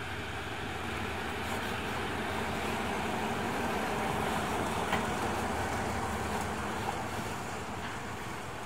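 Passenger train rolling past behind a Hitachi-built diesel-electric locomotive: a steady rumble of engine and wheels on the rails as the coaches file by, swelling to its loudest about halfway and easing off toward the end.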